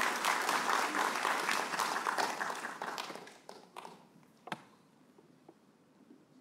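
Audience applauding. The clapping thins out about three seconds in and dies away after a few last scattered claps.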